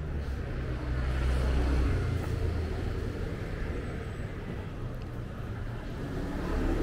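Street traffic: a motor vehicle passing close, its low engine rumble and tyre noise loudest about a second or two in, then easing to a steady traffic hum.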